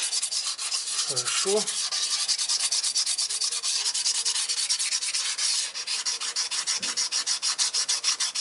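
Very fine sandpaper wetted with WD-40 being rubbed by hand in rapid back-and-forth strokes over the metal cylinder block deck, scouring off old head-gasket residue.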